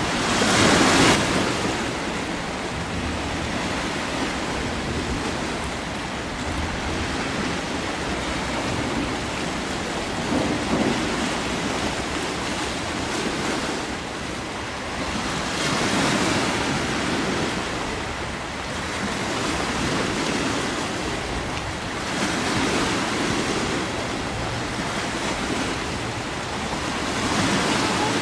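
Steady rushing of wind and water, with broad swells every five or six seconds like waves washing in.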